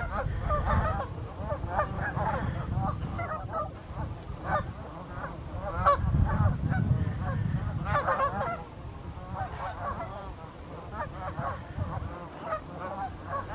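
Large flock of waterfowl honking, many short overlapping calls.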